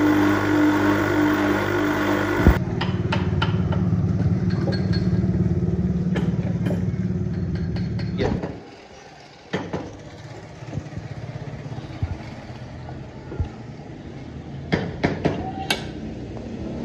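Woodworking spindle moulder running steadily as an axe handle is shaped, its hum changing at a cut about two and a half seconds in. About eight seconds in the machine noise stops, leaving quieter scattered taps and clicks of hand carving tools on wood.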